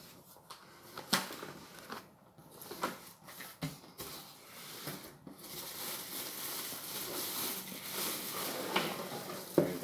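Packaging being handled during an unboxing: a few knocks and clicks, then steady rustling and crinkling of plastic or paper wrapping from about four seconds in.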